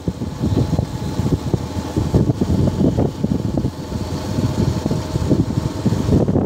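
Wind buffeting the microphone of a moving motorcycle, a gusty rush with the engine running faintly underneath.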